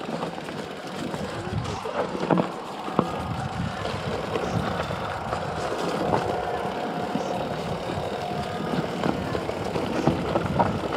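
Mountain bike ridden over rocky, leaf-covered singletrack: a steady rumble and rattle of tyres, chain and frame over dirt and stones, with sharp knocks as the wheels strike rocks about two and three seconds in.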